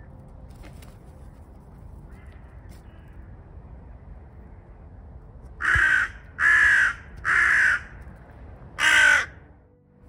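Hooded crow cawing: three harsh caws in quick succession about six seconds in, then a fourth after a short pause.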